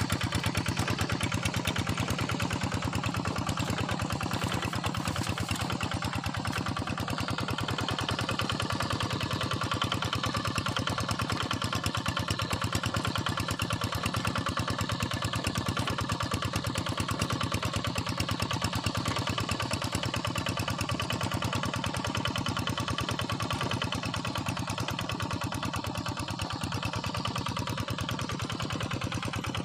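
Quick Impala hand tractor's single-cylinder diesel engine running steadily with a fast, even beat.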